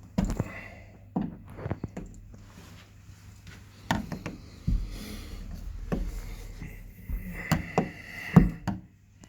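Irregular sharp clicks and knocks from handling the fittings of a uPVC door, the loudest a second before the end.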